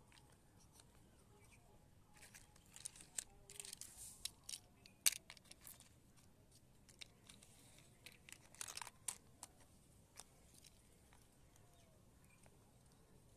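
Faint rustling and light clicks of plastic toys being handled, in two short clusters, with the sharpest click about five seconds in.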